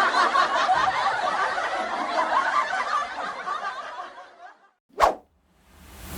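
Crowd laughter sound effect: many people laughing together, fading out about four seconds in. A short sharp click follows about a second later, and a rising whoosh begins near the end.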